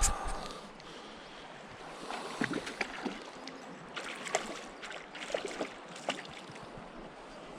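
Mountain stream running, with scattered small splashes and knocks as a hooked brown trout is played in the water.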